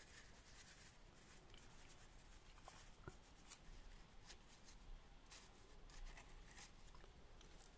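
Faint, scattered rustling and light ticks of paper being handled, barely above room tone: banknotes being taken out and turned over.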